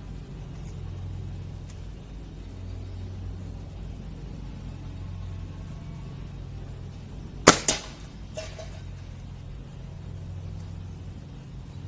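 Beeman Dual spring-piston air rifle firing one shot: a sharp crack a little past halfway, with a second quick crack right after it. A fainter knock with a brief ring follows just under a second later.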